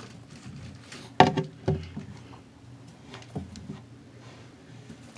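A few sharp knocks and scuffles from a pet rabbit moving about its wire cage and jumping up at a hand, the loudest a little over a second in, over a steady low hum.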